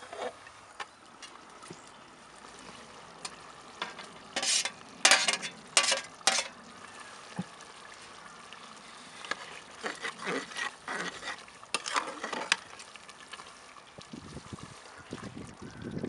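Metal spoon stirring chicken curry in an aluminium stockpot, scraping and knocking against the pot in short clusters about four to six seconds in and again a few seconds later.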